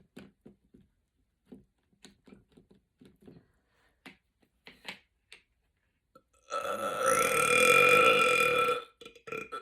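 A woman's long, loud belch of about two and a half seconds, with a steady pitch that rises partway through, coming near the end after a run of soft short clicks.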